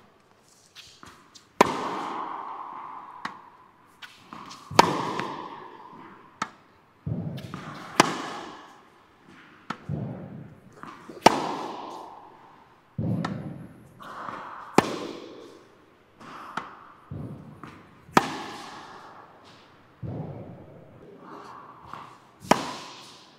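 Tennis balls struck with a racket on backhand strokes and bouncing on the court. There is a sharp pop every second or two, each followed by a long echo in the hall.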